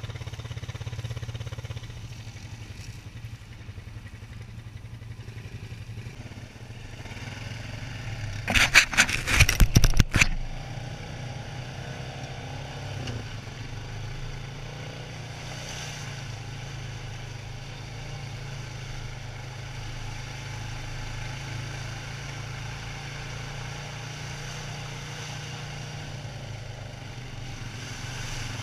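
Quad ATV engine running steadily under way. About eight seconds in comes a loud burst of clattering knocks lasting about two seconds.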